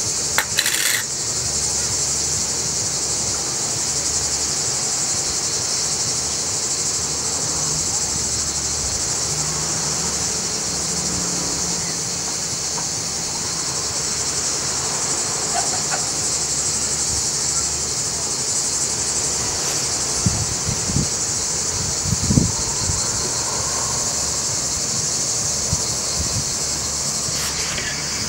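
A steady, unbroken chorus of cicadas singing, high-pitched and constant, with a few low knocks about two-thirds of the way through.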